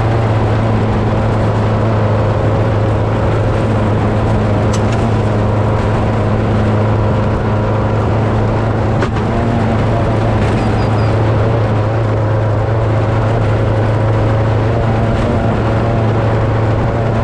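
Vehicle engine running at a steady speed: a constant low drone with steady road and driving noise, unchanging throughout.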